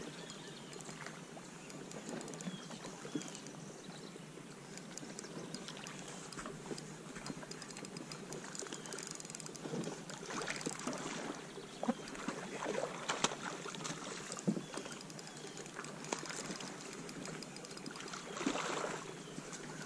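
Water sloshing and trickling around a fishing kayak, with scattered light knocks and splashes; the splashing grows louder for a moment about halfway through and again near the end.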